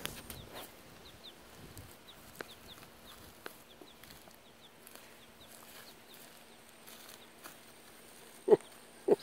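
A baby chick peeping: a steady string of faint, short, falling chirps, two or three a second. A few soft knocks along the way, and one loud short call near the end.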